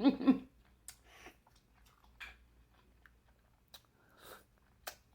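Close-miked eating sounds: sparse wet mouth clicks and short chewing smacks, about half a dozen, spaced irregularly.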